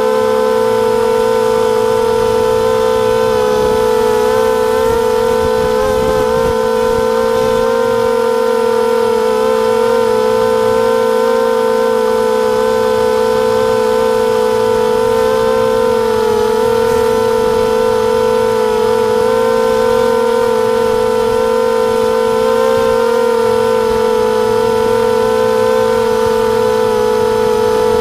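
250-size FPV racing quadcopter's brushless motors and propellers whining steadily in flight, the pitch wavering slightly with throttle.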